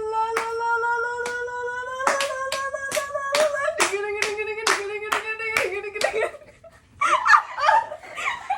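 Hand claps keep a steady beat under a single voice holding a long sung 'la' that slowly rises, then dips about four seconds in. The singing and clapping stop about six seconds in, and a jumble of voices follows near the end.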